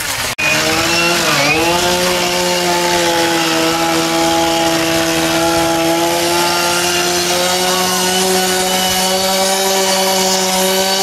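A power saw's motor running at a steady high speed. Its pitch dips and recovers about a second and a half in, then holds level.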